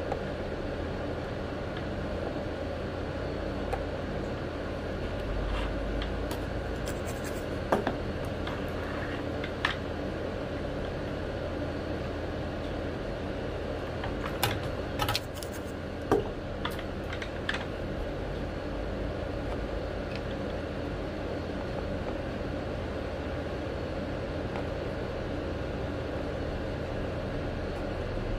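Hand soldering on a circuit board: a steady hum in the background, with scattered light clicks and taps from the iron and board handling. The taps cluster a little past the middle.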